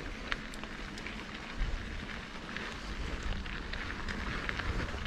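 Mountain bike tyres rolling over a dry, dusty dirt trail: a steady crackle of grit under the tyres with scattered small ticks and clicks.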